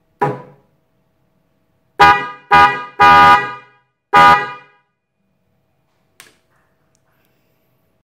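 Bosch H3F electronic dual-tone trumpet horns on 12 V, sounding in short blasts as their lead is touched to the battery terminal. There is a brief blip, then, about two seconds in, four loud honks in quick succession, the third held the longest. A faint click follows a few seconds later.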